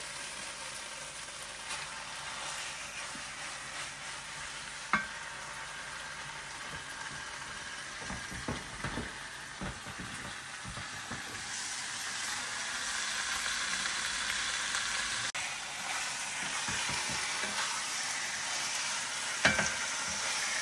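Raw chicken sizzling as it fries in red curry paste and a little coconut milk, being stirred, with a few sharp clinks of the stirring utensil against the pan. The sizzle gets a little louder about halfway through.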